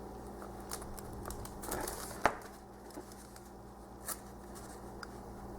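Paper pages of a thick magazine being handled and leafed through: light rustles and scattered small clicks, with one sharp tap a little past two seconds in, over a faint steady hum.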